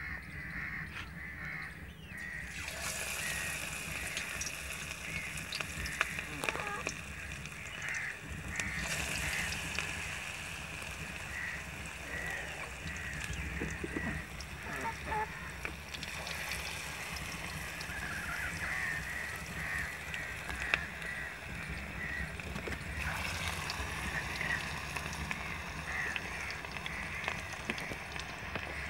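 Lachha pakoras (grated potato in gram-flour batter) deep-frying in hot ghee in an iron kadhai: a steady sizzle that starts about two and a half seconds in, as the batter goes into the fat.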